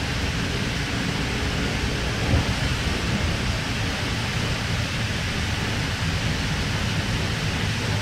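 Steady rumble and hiss of a K-set double-deck electric suburban train running at speed, heard from inside the carriage, with wheels and running gear on the track. A single brief knock comes about two and a half seconds in.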